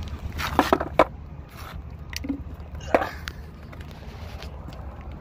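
Skateboard handled and set down on concrete: a few sharp knocks and clatters of the wheels and deck about a second in, and one more near three seconds, over a steady low rumble.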